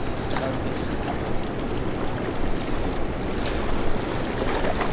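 Steady rushing of fast river current below a dam with the hydro outflow running.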